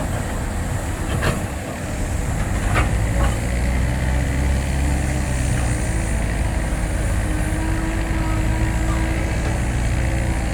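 Caterpillar 320 excavator's diesel engine working under load as the bucket digs into very hard soil, growing stronger about two seconds in. A few short knocks come in the first three seconds.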